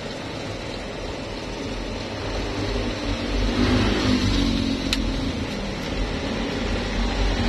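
A steady, low engine-like rumble that grows louder about three seconds in, with one sharp click about five seconds in.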